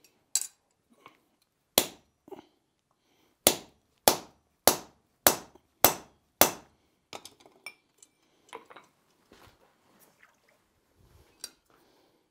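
Hand hammer striking a punch held on the red-hot forge weld at the centre of a three-legged steel stand, punching a hole through it: sharp ringing steel-on-steel blows, two early ones, then a run of six evenly spaced blows at about one and a half a second. Lighter clinks and taps follow near the end.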